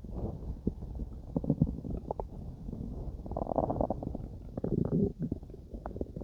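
Human stomach growling while digesting food: an irregular run of short gurgles and pops, with a few longer rumbles among them.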